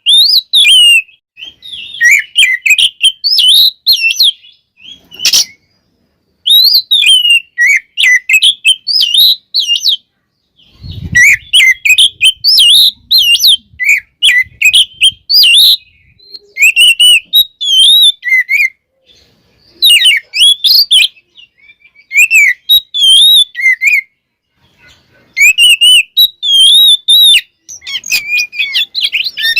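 Oriental magpie-robin (kacer) singing loudly in rapid phrases of varied whistles, slurred notes and trills, in bursts separated by short pauses. There is a brief low thump about eleven seconds in.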